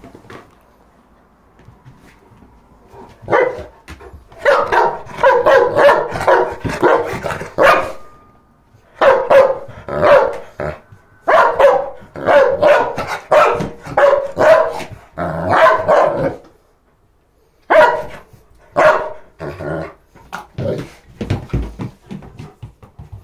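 Black schnauzer barking and growl-barking in play: long runs of rapid, loud barks starting about three seconds in, with a short break about two-thirds of the way through.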